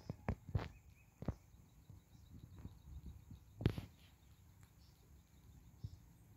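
Quiet open-air trackside ambience: a faint low rumble with a few scattered soft thumps and crunches, the strongest about two thirds of the way through, and faint bird or insect sounds.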